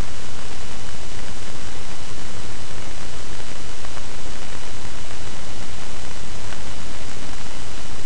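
Loud, steady hiss and static from a poorly set-up microphone, an even noise with no other sound in it.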